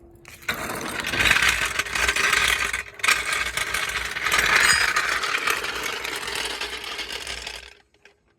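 Metal jack stand being dragged and shifted across the ground, a continuous scraping rattle in two stretches with a short break about three seconds in, stopping abruptly near the end.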